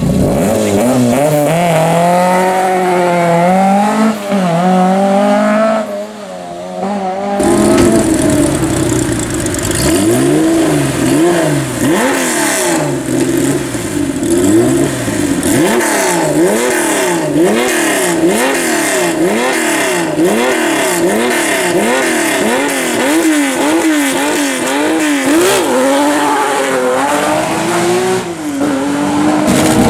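Fiat 131 Abarth rally car's engine held at the start line and revved in rising and falling blips. After an abrupt change about seven seconds in, an engine is blipped rhythmically, roughly one rev a second, for most of the rest.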